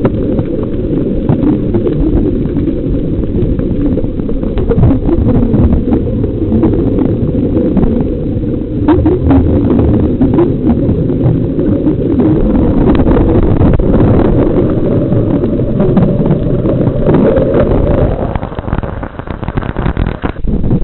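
Heavy wind rumble buffeting the microphone, with scattered crackles; it eases briefly near the end.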